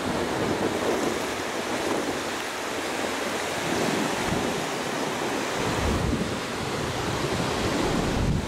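Ocean surf breaking and washing up a sandy beach, a steady rushing wash, with wind gusting on the microphone as low rumbles that come and go.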